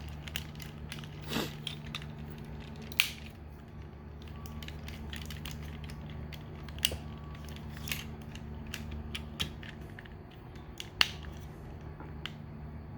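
Plastic parts and joints of a Transformers Masterpiece MP-30 Ratchet figure clicking and scraping as its legs are worked and the wheels folded in. A handful of sharp clicks are spread out, the loudest about three seconds in and near eleven seconds, over a steady low hum.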